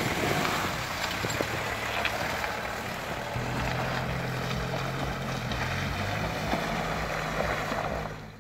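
Isuzu Bighorn SUV's engine pulling steadily as it drives through mud. The engine note steps up about three and a half seconds in and drops back about two and a half seconds later.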